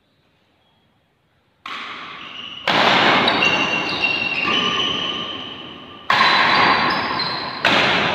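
Badminton doubles rally: four sharp racket strikes on the shuttlecock, each ringing on in the hall, with short high shoe squeaks on the court floor between them. Near silence for the first second and a half, before the first strike.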